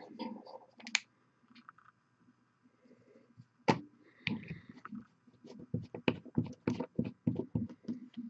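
Light, irregular clicks and taps of painting supplies being handled at the desk, several a second through the second half.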